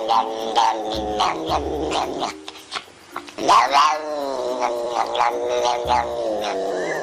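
Tortoiseshell cat yowling over and over in drawn-out, wailing calls that sound like "no", "hobbit" and "nom". The longest and loudest call comes about halfway through.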